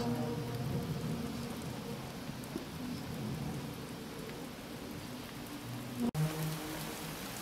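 Steady hiss of rain. A low, drawn-out, horn-like drone fades out in the first moment and comes back near the end, after a sudden brief dropout at about six seconds.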